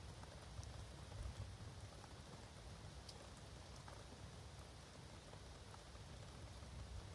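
Faint steady rain falling in woodland, with single drops ticking now and then over a low rumble.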